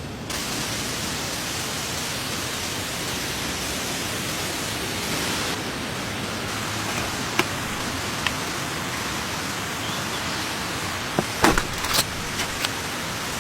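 Steady rain falling as an even hiss, with a few sharp taps standing out, most of them bunched near the end.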